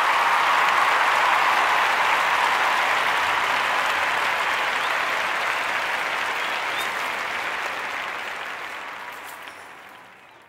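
Crowd applause, a dense steady clapping that fades out gradually over the last few seconds.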